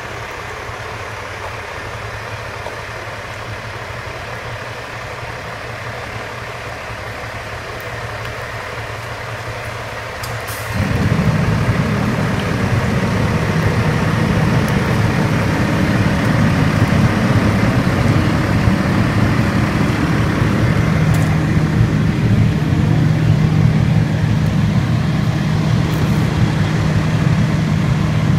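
An engine running steadily with a low rumble. About eleven seconds in it suddenly gets much louder, and a steady low hum is heard through the rest.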